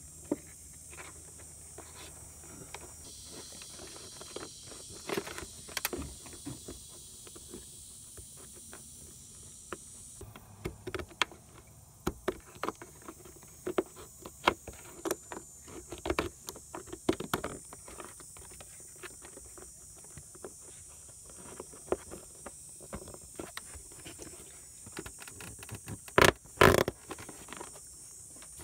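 Hand work on a scooter's plastic leg shield: irregular small clicks and scrapes as a blade shaves the edge of a drilled hole and a 12 V socket and its wires are handled. A few louder knocks come near the end as the socket is pressed into the hole.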